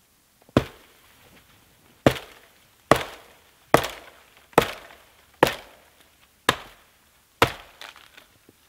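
An axe chopping limbs off a dead, downed pine: about nine sharp strikes, roughly one a second, each trailing off briefly.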